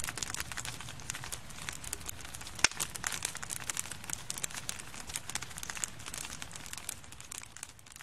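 Wood campfire crackling, with a dense run of small pops and one louder snap a little under three seconds in, fading out near the end.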